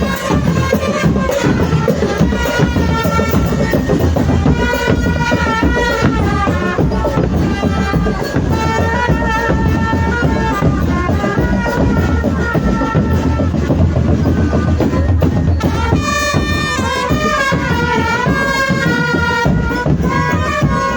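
Drumband playing: steady, dense drumming all through, with a melody line coming in about four seconds in and again from about sixteen seconds.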